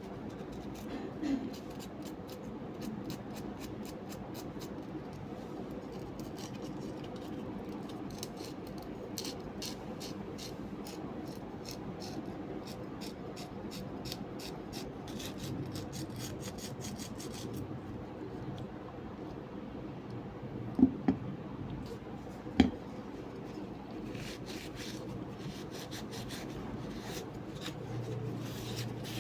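Small scraping and clicking handling sounds, in fast runs, over a steady low hum, with a few sharp knocks about two-thirds of the way through.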